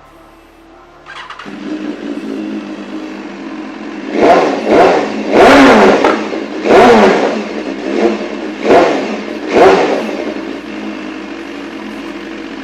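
2018 BMW S1000RR inline-four sport bike engine starting about a second in and idling, then revved in about seven sharp throttle blips before dropping back to idle. It is being test-revved after a Rapid Bike fuel module was fitted to cure its stutter, which the crew says is gone.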